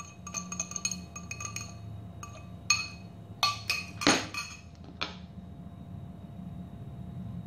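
A metal fork clinking quickly and irregularly against a small glass bowl as an egg yolk is beaten, the glass ringing briefly after each strike, with a louder knock about four seconds in. The clinking stops about five seconds in.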